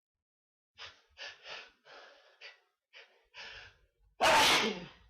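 A man's sneeze during a sneezing fit: a run of short gasping breaths in as it builds, then one loud sneeze about four seconds in.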